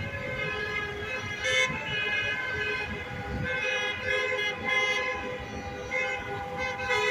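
Car horns of passing freeway traffic honking in long held blasts, several horns overlapping and swelling in and out, over the rumble of traffic.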